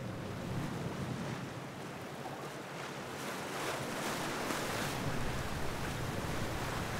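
Wind buffeting the microphone over choppy sea water washing past a moving sailboat's hull, with the boat's engine droning low underneath; the wind and water get louder and gustier about halfway through.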